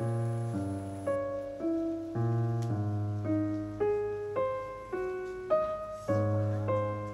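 Background piano music: a gentle melody with a note struck about every half second over held low notes.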